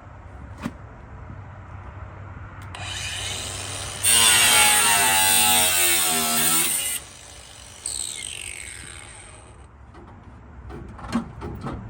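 Battery-powered power tool spinning up and cutting loudly for about three seconds. It then stops and winds down with a falling whine.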